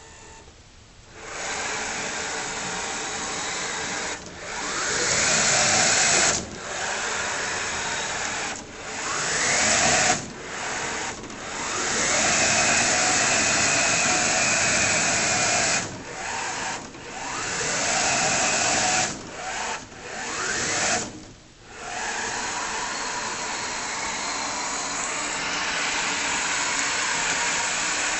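Electric wheel drive motors of a six-wheeled lunar mining robot whining as it drives and turns. They run in repeated bursts of a few seconds with short stops in between, and several bursts start with a rising whine as the motors speed up.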